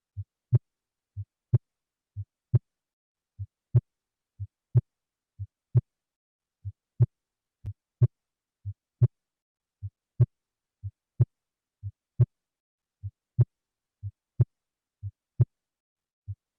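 Heart sounds as heard through a stethoscope in a cardiac auscultation recording: a steady lub-dub at about 60 beats a minute, the second sound of each pair clearly louder than the first. Nothing is heard between the beats.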